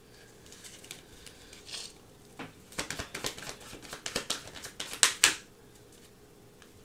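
Tarot cards being handled: a few soft rustles, then a quick run of dry card flicks and taps through the middle, ending in two louder slaps of cards laid down.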